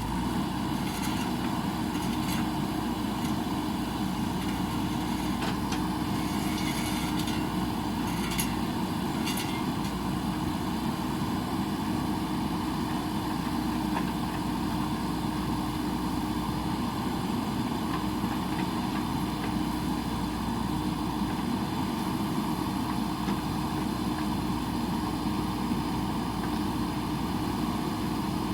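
Diesel engine of a JCB backhoe loader running steadily at an even speed, with a few faint clicks over it.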